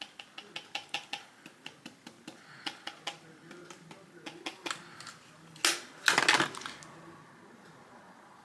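A makeup brush working in a clear plastic powder case, giving a run of quick light clicks at about four a second, then a couple of louder plastic clacks a little past the middle.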